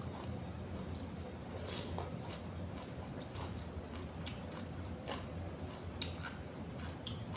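A person chewing and biting food, with irregular short crunchy clicks, over a steady low hum.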